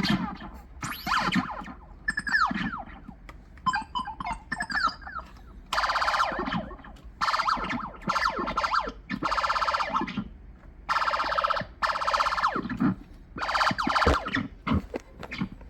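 Electronic sound effects from a homemade sound-effect gun built on an old toy sound chip, their pitch bent by an optical sensor. It opens with a run of falling swoops, then gives about seven short bursts of a dense, buzzing tone, each about a second long.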